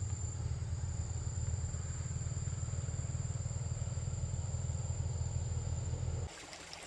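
Insects shrilling with a steady high tone over a louder, steady low rumble. The rumble cuts off abruptly near the end.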